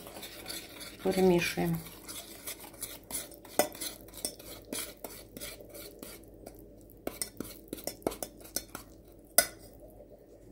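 Metal spoon stirring powdered sugar and a little water into icing in a stainless steel bowl, with many irregular clinks and scrapes of the spoon against the metal.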